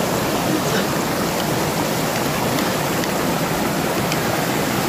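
River rapids rushing over rocks: a steady, even rush of whitewater close to the microphone.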